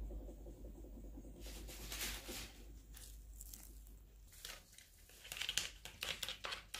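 Faint scraping, rustling and light clicks from gloved hands working pie dough on a wooden board, over a low hum that fades a little past halfway.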